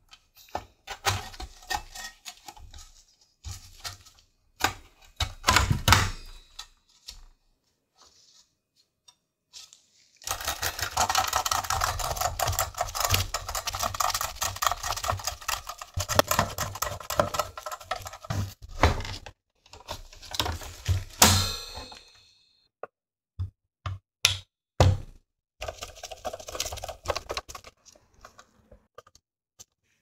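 Clicks, knocks and rattles of Xbox One S internals being handled and fitted back together: the motherboard, its aluminium heatsink and the sheet-metal shield. A long stretch of dense, rapid clicking and rattling fills the middle while the shield's screws are driven in with a small screwdriver, with scattered single clicks before and after.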